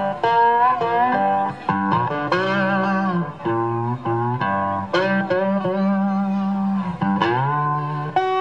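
Blues played on a National ResoTone resonator guitar with a harmonica in a neck holder: held, bending harmonica notes over plucked guitar.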